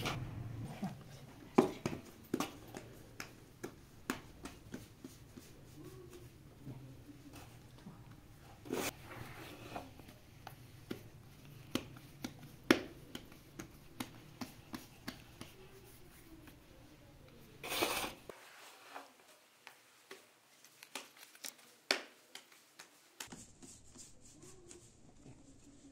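Hands working bread dough in a large aluminium basin: soft handling noises with scattered sharp clicks and taps on the metal, and a short burst of noise about eighteen seconds in.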